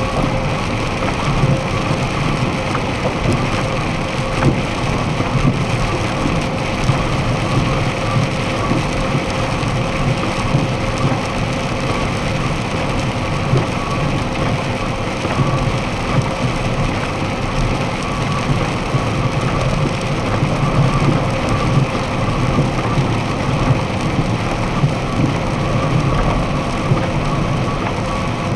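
Steady cab noise of a box truck at highway speed on a wet road: engine and drivetrain drone with tyres hissing on wet pavement and rain against the windshield, heard from inside the cab.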